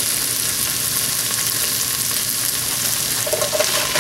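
Sliced onion and garlic sizzling steadily in hot oil in a nonstick pot. Near the end come a few light knocks as sliced mushrooms start tipping in from a plastic tray.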